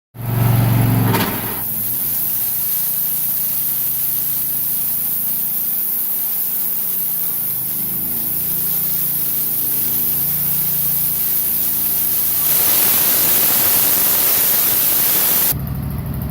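Wood-Mizer LT15 portable band sawmill running, its band blade cutting a red cedar log over a steady motor drone with a high hiss, the motor's pitch wavering partway through. About twelve seconds in the sound grows louder and fuller, and near the end the high hiss cuts off suddenly.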